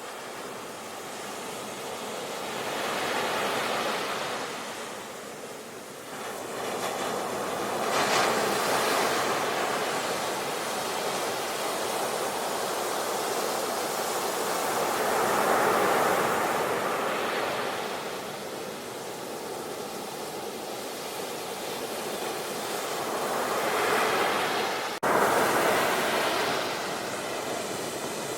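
Sea surf, waves breaking and washing ashore, swelling and easing every few seconds. There is an abrupt break near the end.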